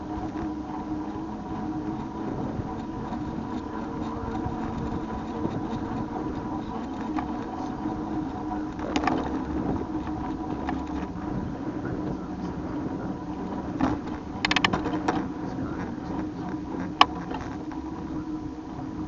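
Steady riding noise of a bike on the move, an even hum with a few short rattles and one sharp click near the end.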